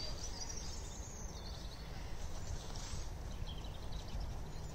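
A horse trotting on a soft arena surface, its hoofbeats muffled under a steady low rumble. Small birds chirp high above it during the first second or so and again about three and a half seconds in.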